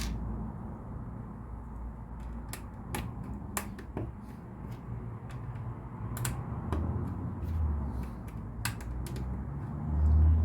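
Plastic LEGO pieces clicking and tapping as they are handled and pressed together: a few sharp clicks at irregular intervals over a low rumble that swells near the end.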